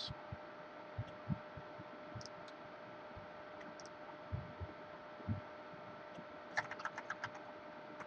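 Quiet computer keyboard typing and clicking: a few soft low thumps spread through, then a quick run of about eight sharp key clicks near the end, over a faint steady hum.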